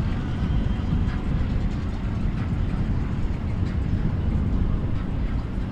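Boat engines running as boats pass on the water, a steady low rumble.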